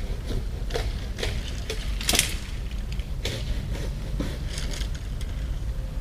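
Scattered, irregular clicks and taps, the loudest about two seconds in, over a steady low rumble.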